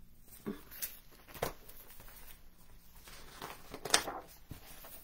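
Paper rustling and a few short soft knocks as a hardcover picture book is handled and moved, the loudest about four seconds in.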